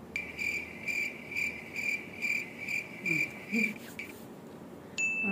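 Cricket chirping in a regular pulse, about eight chirps over three and a half seconds, starting and stopping abruptly like the stock 'crickets' comedy sound effect. Near the end a short, steady, high beep-like tone starts suddenly.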